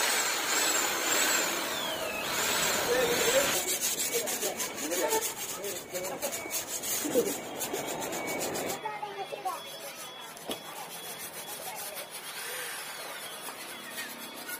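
Sandpaper rubbed back and forth by hand over a car's painted steel bonnet: a dense, scratchy scraping, made while sanding down old, flaking paint to prepare the panel for repainting.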